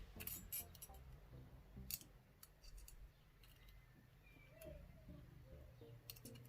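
Small metallic clicks and scrapes of lock picks working inside a padlock, scattered and irregular, faint, over soft background music.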